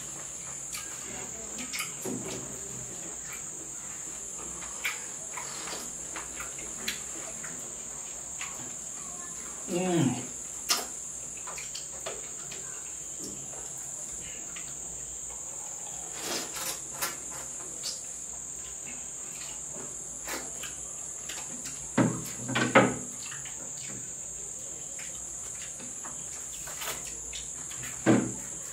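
Crickets trilling steadily in the background, with scattered eating sounds of soup being licked and lips smacking. There are a few louder short mouth sounds, one with a falling pitch about ten seconds in, a pair around twenty-two seconds, and one near the end.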